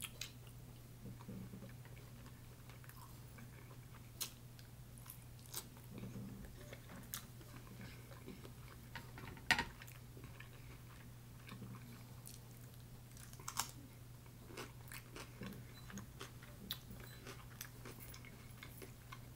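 A person eating shrimp and cucumber close to the microphone: chewing with scattered crisp clicks and crunches, the loudest about halfway through and another a few seconds later.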